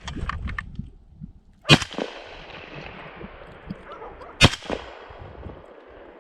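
Two hunting rifle shots about two and a half seconds apart, each followed by a long rolling echo.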